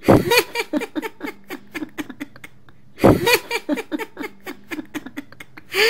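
A woman laughing heartily in two long bouts of rapid ha-ha pulses, each starting loud and trailing off. The second bout begins about three seconds in.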